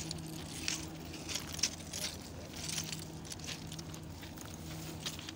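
Footsteps crunching irregularly on loose railway ballast stones, over a steady low hum.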